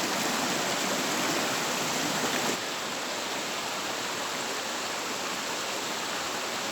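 Steady rush of a waterfall and the river below it. The rushing dips slightly in level about two and a half seconds in.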